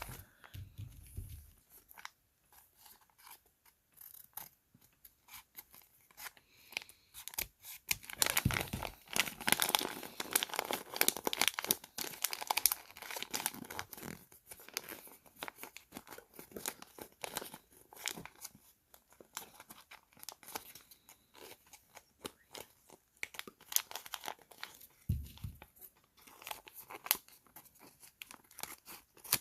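Small plastic packaging being torn open and crinkled by hand, in irregular crackling rustles with sharp clicks, busiest in the middle.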